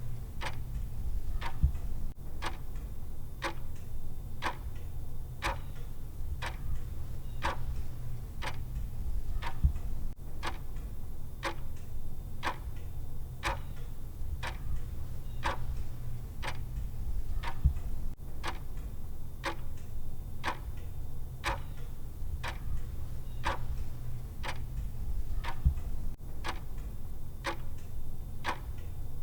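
Countdown timer's clock-style tick sound, ticking evenly at a little more than one tick a second over a steady low hum.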